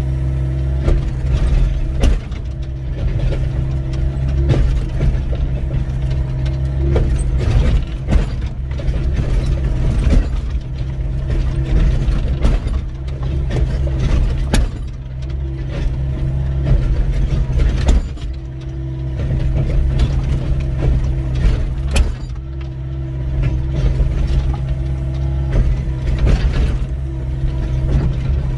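Doosan 55W wheeled excavator's diesel engine running steadily under load while the bucket digs into stony ground, with frequent irregular knocks, scrapes and clanks of steel on rock.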